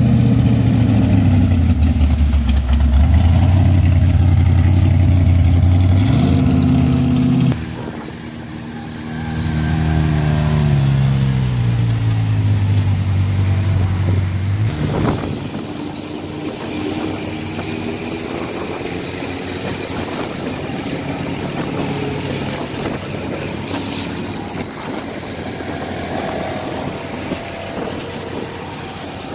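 Sand drag vehicles' engines. A paddle-tired sand rail's engine runs loud, its pitch dropping and then climbing before it cuts off suddenly about seven seconds in. A second engine's pitch falls steadily until about fifteen seconds in, and then a quieter engine sound of vehicles idling and rolling slowly follows.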